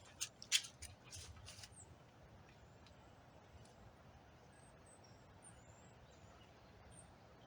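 A few short crinkling, crackly handling noises in the first second and a half as double-sided tape is worked into a plastic door handle cover, then a faint steady hiss with a few faint high chirps.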